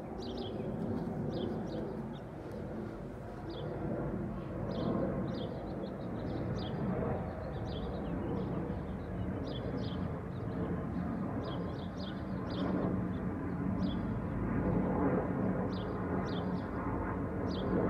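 Small birds chirping in short, high, repeated notes over a steady low rumble of distant city traffic.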